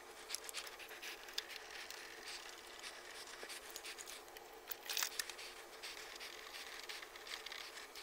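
Faint scraping and light clicks of cables and connectors being handled and plugged in, over a steady faint hum.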